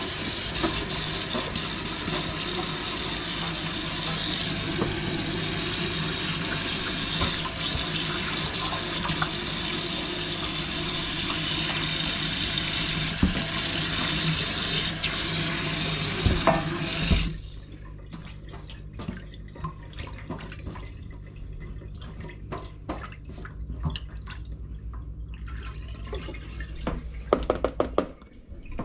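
Kitchen tap running into a stainless steel sink while dishes are scrubbed with a brush. About seventeen seconds in the water shuts off, leaving light clicks and knocks of things being handled, with a flurry of them near the end, over a low steady hum.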